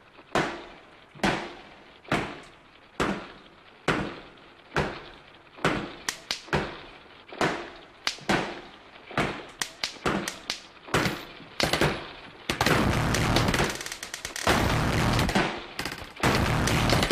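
A run of sharp bangs, each dying away quickly, at first about one a second, then coming faster and in clusters, giving way about three-quarters through to a loud, dense stretch of noise broken by short gaps.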